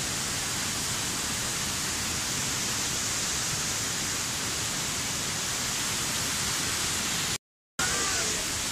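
Steady rush of Tinuy-An Falls, a wide multi-tiered curtain waterfall: an even wash of falling water with no rhythm or change. It cuts out for a split second near the end.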